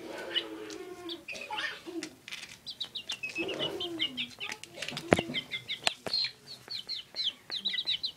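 Young Thai rooster chick being handled, giving rapid high-pitched chirps several times a second through the second half, with lower calls that fall in pitch in the first second. A few sharp knocks, the loudest about five seconds in.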